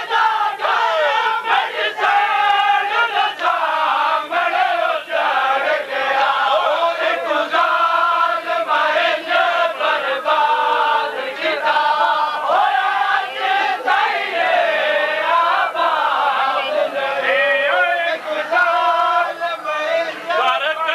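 A crowd of men chanting a noha, a Shia mourning lament, together in a rising and falling melody.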